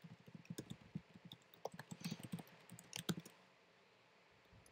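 Typing on a computer keyboard: a quick run of keystrokes that stops about three seconds in, followed by a single sharp click near the end.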